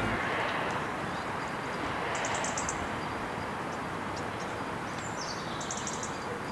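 Steady outdoor background hiss, with a small bird's rapid high chirping heard briefly twice, about two seconds in and again near the end.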